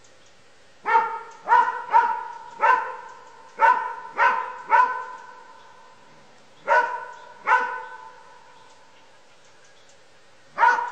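Dog barking at a bear to drive it off: a quick run of seven barks starting about a second in, two more a couple of seconds later, and a single bark near the end, each bark fading out briefly after it.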